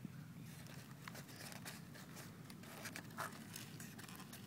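Faint irregular crinkling and small clicks of the crash-damaged foam RC model plane being handled and turned over in the hands.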